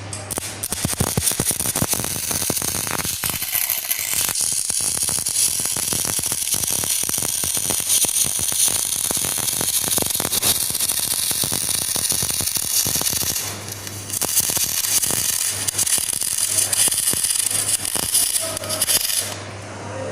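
CO2 MIG welding arc from a Memco Memig 400 A inverter welder, a steady dense crackle of short-circuit spatter. It breaks off briefly about two-thirds of the way through, starts again, and stops shortly before the end.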